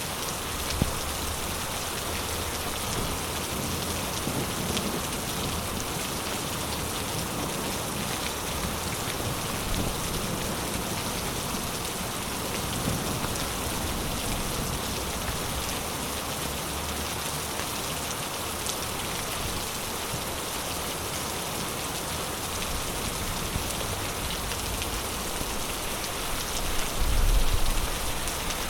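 Heavy rain falling steadily, a dense, even hiss of water on surfaces. A single sharp click comes about a second in, and a low rumble swells briefly near the end.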